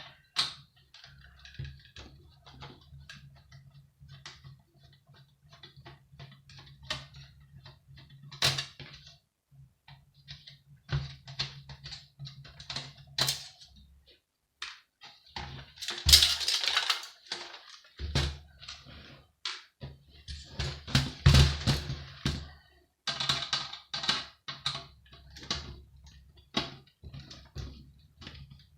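Irregular clicking, tapping and rattling of hand tools and small metal parts while a Sky satellite TV box is taken apart and a screw is undone, with a low hum that comes and goes underneath.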